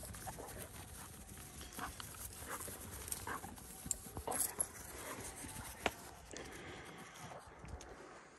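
Young coonhounds and their handler moving across a dry grass field: faint, scattered footfalls and rustling in the grass, with a few short sharp clicks, the clearest about six seconds in.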